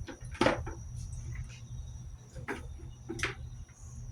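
Three sharp knocks and clicks of parts being handled while a window-type air conditioner's fan motor is worked on, over a steady low hum.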